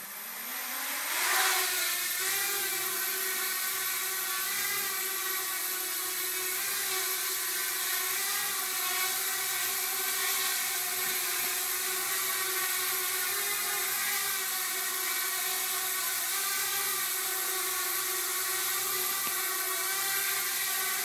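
Small quadcopter's electric motors and propellers spinning up with a rising whine over the first second or so, then holding a steady high whir as it hovers. The pitch wavers slightly with throttle corrections.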